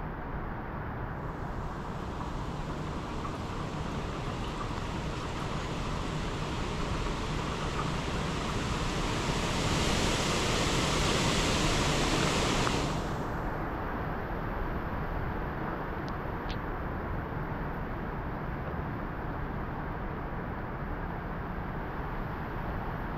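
Wind ahead of a hurricane: a steady rumble that builds into a strong gust with loud hiss, peaking about ten seconds in and dropping off suddenly about thirteen seconds in.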